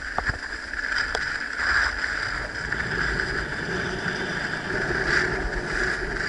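Skis sliding and carving over packed snow in a steady hiss that swells and fades with each turn, with wind rumbling on the microphone.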